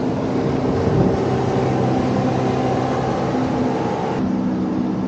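A motorboat engine running with a steady hum, its pitch stepping slightly about a second in.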